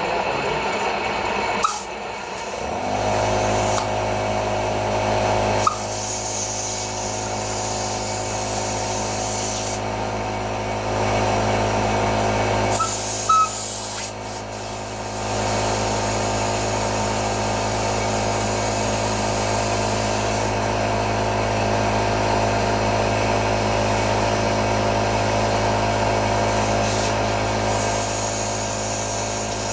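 Small electric air compressor starting up about three seconds in and running with a steady hum, topping up the air reservoir of an Air Zound bike horn. A couple of short clicks come partway through.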